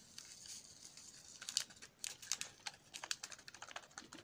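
Foil seasoning sachet crinkling in quick, irregular crackles as it is squeezed and shaken out over a cup of instant noodles.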